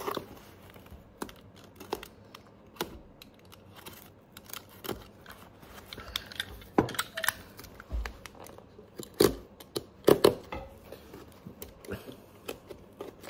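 The old leather sole of a cowboy boot being pried and torn away from the boot with pliers: scattered clicks, snaps and tearing of aged leather and cut stitching, with two louder snaps about nine and ten seconds in.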